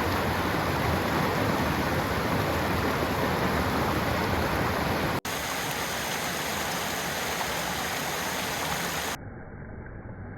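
Steady rushing water of a mountain stream or cascade, in two stretches joined by an abrupt cut about five seconds in, the second a little quieter. It stops short near the end.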